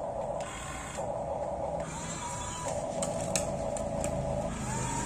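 Small electric gear motors of a remote-control toy excavator whining, switching on and off and changing pitch as different functions are worked, with a couple of short rising whines.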